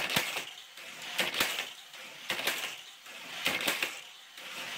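Plastic-and-metal clattering from a 1970 Topper Johnny Lightning Indy 500 race set: the hand-slapped launcher clacks and a small die-cast car rattles along the plastic track sections. The sharp clacks come about once a second, with rattling between them.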